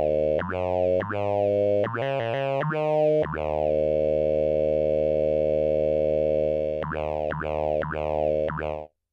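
Akai Timbre Wolf analog synthesizer playing: plucky notes whose tone sweeps down after each attack, a quick run of changing notes, then a long held chord, more plucked notes, and a sudden stop just before the end.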